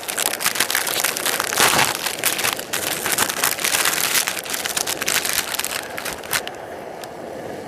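Plastic packaging crinkling and rustling as it is handled, a dense irregular crackle that dies down about six and a half seconds in.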